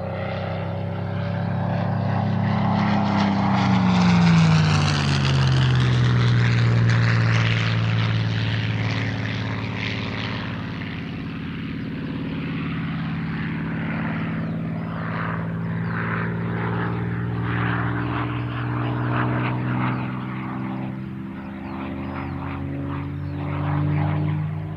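Propeller-driven Second World War fighter's piston engine flying past: a steady engine drone whose pitch slides down as the aircraft passes closest about four seconds in, then drones on as it flies away, swelling again near the end.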